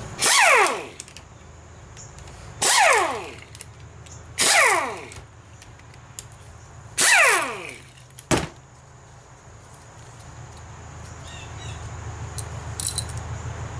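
Small electric power tool run in four short bursts, its pitch falling each time as the motor spins down. A single sharp click follows about eight seconds in.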